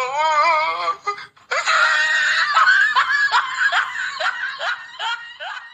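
A person laughing: a wavering giggle, a brief break, then a run of about ten short falling 'ha's that grow fainter toward the end.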